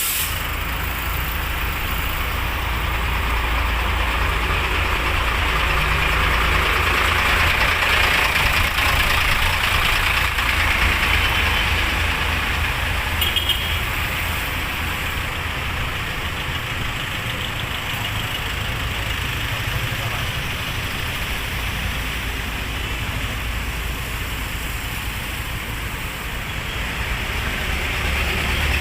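Street traffic: vehicle engines idling and passing, with a steady low rumble.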